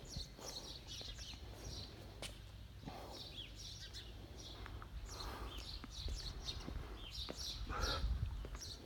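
Small birds chirping in quick, repeated short calls, over a few soft footsteps and a low steady rumble.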